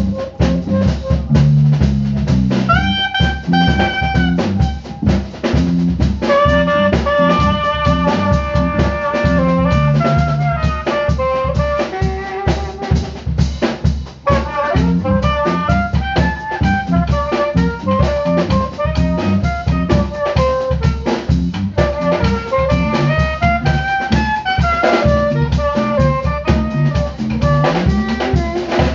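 Band music: a drum kit keeping a busy beat under a melody that moves in steps, played on a pitched instrument.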